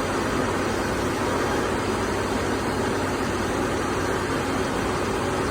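Doosan PUMA GT2600 CNC lathe running while it machines a SUS316 stainless steel flange: a steady whirring hiss of machine noise over a low hum, with no knocks or breaks.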